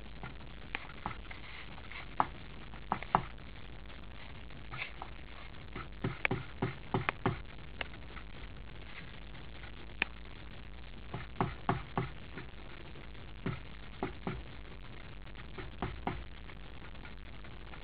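Jackdaw pecking at a hanging seed ball on a metal feeder: irregular sharp knocks and taps, often in quick clusters of two or three.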